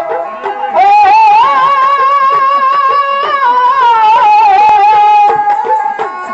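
A man singing a devotional melody in long, held notes that waver and slide in pitch, amplified through a microphone. A bowed sarangi plays alongside.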